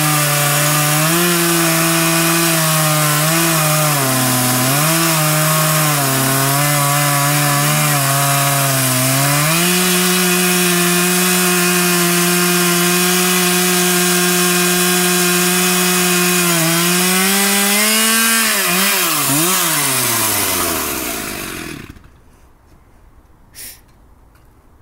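Chainsaw on an Alaskan chainsaw mill running at high speed while ripping a log, its pitch dipping now and then under load. Near the end it revs up briefly, then winds down to a stop.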